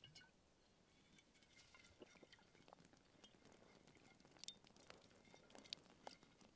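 Near silence, with faint scattered small clicks and ticks.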